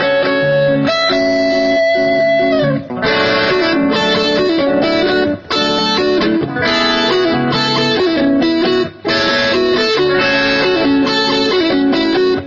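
Electric guitar played through a Boss DD-7 digital delay pedal in looper mode: picked melodic phrases layered over chords, with short breaks between phrases about 3, 5.5 and 9 seconds in.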